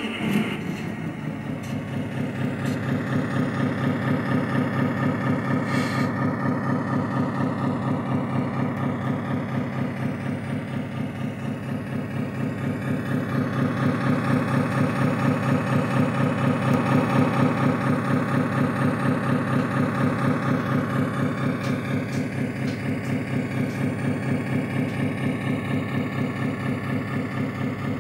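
RC model Scania T530 truck's sound module playing a diesel truck engine through its small speaker: the engine catches right at the start and then idles steadily with a fast even throb, swelling a little about halfway through.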